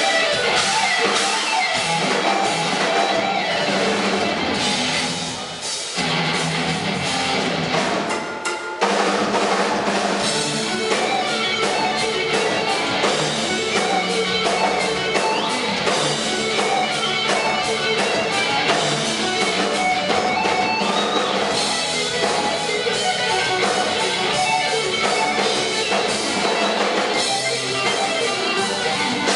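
Rock band playing loud instrumental metal on electric guitar, bass and drum kit, with short breaks in the music about six and nine seconds in.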